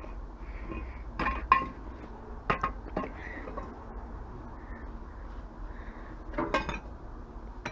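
Clinks and knocks of scrap parts from a dismantled microwave being handled and set down, a few separate hard strikes in the first three seconds and a quick cluster of them near the end.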